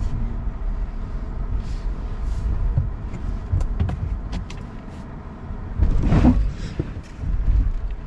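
Rivian R1T electric pickup crawling over a rough dirt trail: a steady low rumble of tyres and suspension with no engine note, a few light clicks and ticks, and a louder jolt about six seconds in.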